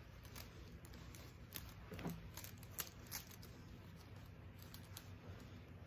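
Faint rustling of curtain fabric being handled, with a few light clicks and taps scattered through it.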